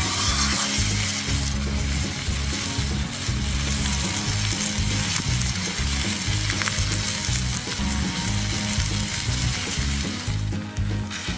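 Raw steak laid into a hot black skillet and sizzling steadily in the oil, the sizzle brightest in the first second as the meat hits the pan. A low repeating beat of background music runs underneath.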